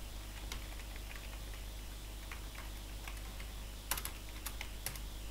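Typing on a computer keyboard: scattered light keystrokes, with a few louder clicks about four seconds in, over a steady low electrical hum.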